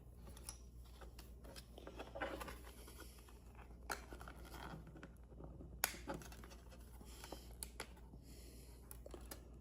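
Faint handling noises from a 3.5-inch floppy disk being taken apart: soft rustling and scraping of its plastic shell and flexible magnetic disk, with a few light clicks, the sharpest about four and six seconds in.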